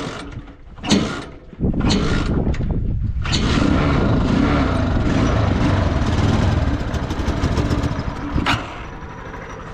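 The 200 cc pushrod four-stroke engine of a homemade tricycle ATV, started without a battery. After a sharp knock about a second in, it catches suddenly about a second and a half in and runs loud and steady, settling quieter near the end.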